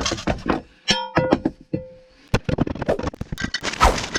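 Music with a plucked string instrument: a ringing note about a second in, followed by a quick run of sharp clicks and knocks.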